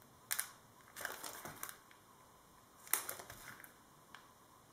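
Crinkling and rustling of a clear plastic sachet and paper as a small handmade scrapbook piece is handled, in a few short bursts over the first three seconds.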